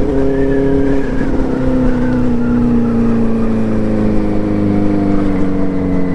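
Benelli TNT 600i inline-four engine and exhaust running under way, its steady note easing slowly lower in pitch as the revs drop.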